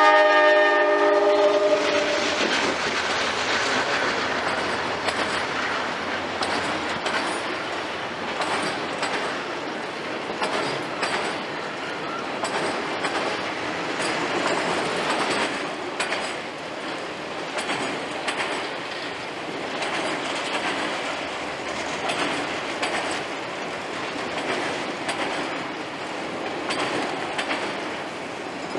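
A CSX freight train passing: the locomotive horn cuts off about a second in, then a long line of autorack cars rolls by with steady wheel-on-rail noise and a clickety-clack of wheels over the rail joints.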